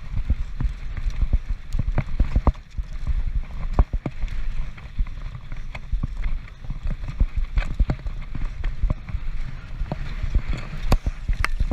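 Transition Patrol mountain bike descending a rough trail fast: a dense, irregular rattle of knocks from tyres, chain and suspension hitting rocks, over a low rumble of wind on the camera.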